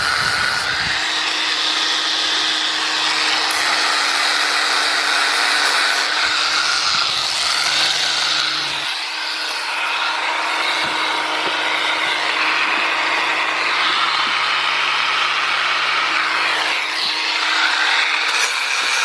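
Cordless power tool running steadily, its motor humming under a continuous scraping, abrasive noise as it cleans up a DC motor part.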